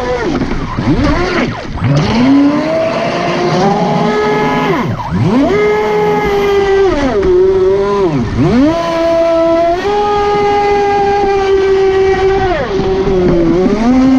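Proboat Impulse 31 RC speedboat's brushless electric motor and metal propeller whining at high speed over the rush of spray, heard from on board. The pitch drops steeply and climbs back about five times as the throttle is eased off and reapplied.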